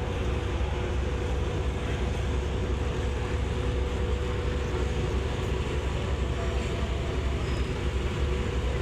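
Steady low rumble of a departing passenger ship's engines, with a constant hum over it.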